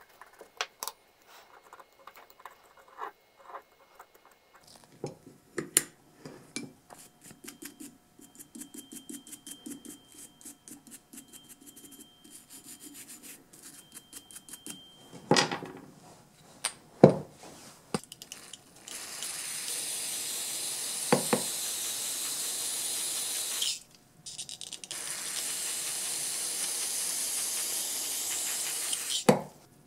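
A small brush scrubbing the threads of a rusty steel bit-brace chuck shell in quick, even strokes, with a few sharp knocks about halfway through. Then an aerosol can with a straw nozzle sprays onto the metal in two long hisses of about five seconds each, with a short break between.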